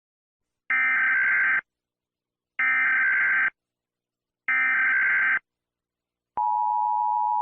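Recreated Emergency Alert System alarm: three short, harsh buzzing data bursts about a second long and two seconds apart (the SAME header), then near the end the steady two-note attention tone begins.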